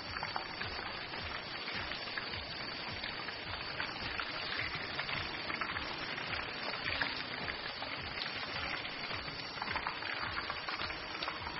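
Nargisi kofte (mince-wrapped boiled eggs) deep-frying in a wok of hot oil, a steady sizzle.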